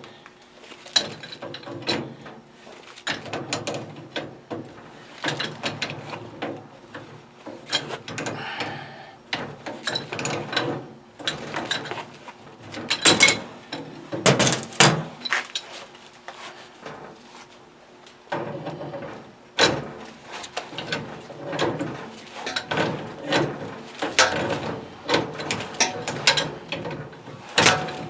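Metal clicking, clanking and scraping in irregular bursts as the threaded union on an old boiler's gas line is worked loose and taken off.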